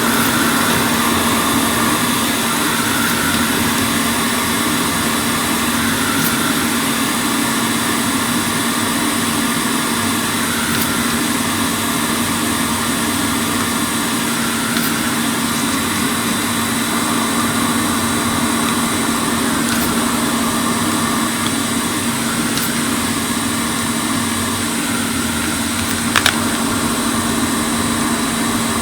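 Hot air rework station blowing steadily, a fan hum with hiss, while heating solder to remove a part from the circuit board. A single sharp click near the end.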